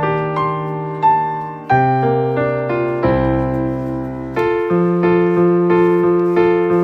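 Background piano music: a slow, gentle melody of struck notes over sustained bass notes, with chord changes every second or two.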